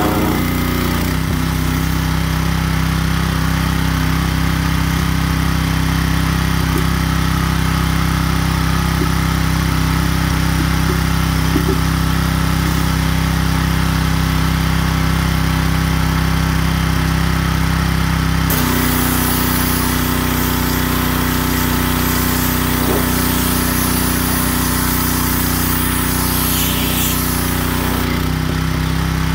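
Gas-engine pressure washer running steadily while spraying concrete, through a rotary surface cleaner and then a wand. A little past halfway the engine note shifts and a hissing spray grows louder for about ten seconds, then eases.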